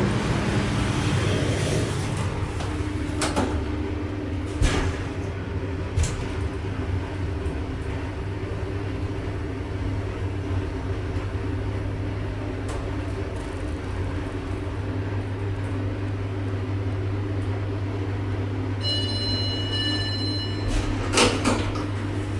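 Omer hydraulic elevator riding up: the hydraulic pump motor hums steadily, with a few knocks of the car doors in the first seconds. Near the end a short electronic arrival beep sounds, followed by the clunks of the doors opening.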